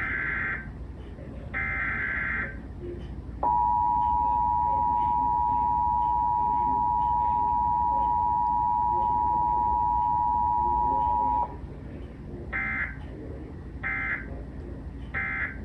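Emergency Alert System transmission: the last two SAME digital header bursts, then the EAS two-tone attention signal held steady for about eight seconds, then three short end-of-message data bursts. No voice message comes between the attention tone and the end-of-message bursts.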